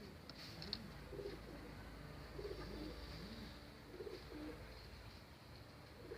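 Racing pigeons cooing faintly, several low coos following one another about a second apart.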